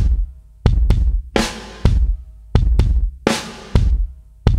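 Background music: a steady drum-kit beat of bass drum and snare, with a snare hit about every two seconds.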